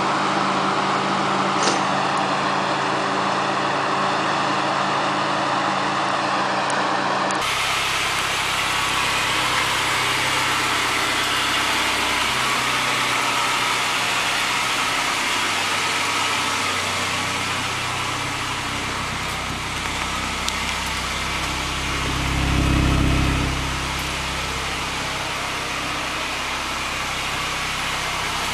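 Honda Civic four-cylinder engines running in a string of clips. First a steady drone from a Civic hatchback on a chassis dyno. After a sudden cut about seven seconds in, a Civic idles, with one short surge in the low rumble about two-thirds of the way through.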